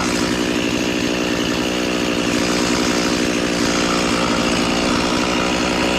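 Two-stroke chainsaw running steadily at a constant high engine speed while cutting the back cut of a leaning tree.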